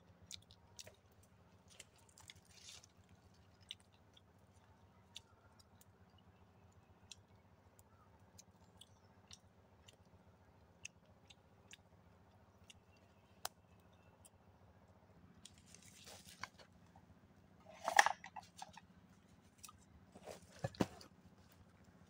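Small open twig fire crackling faintly, with scattered sharp snaps. Near the end come two louder bursts of crunching and rustling in dry leaves as someone moves about.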